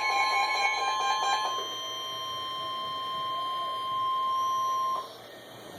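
NOAA Weather Radio warning alarm tone: a steady, single-pitched alert tone, with other tones laid over it for the first second and a half. It cuts off suddenly about five seconds in, leaving faint radio hiss. It signals that a warning message follows.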